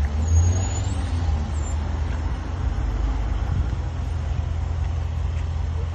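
Brakes of a 2017 Range Rover Sport SVR squealing: a thin high-pitched squeal lasting about half a second near the start, rising in pitch just before it stops, then a short chirp, over a steady low rumble of the moving vehicle. It is a persistent squeal that new pads, discs and calipers have not cured.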